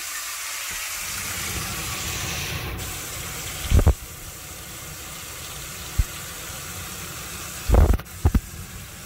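A motorhome cooker-hood extractor fan is switched on and runs with a steady rushing hum over the sizzle of oxtail browning in a steel pot. A few dull thumps come about four seconds in and again near the end.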